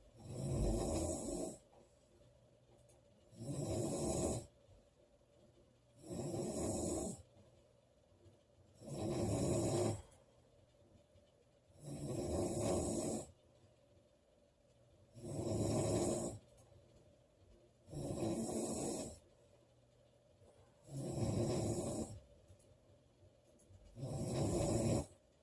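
A woman snoring loudly and regularly: nine snores, each about a second long, coming about every three seconds, with quiet between them.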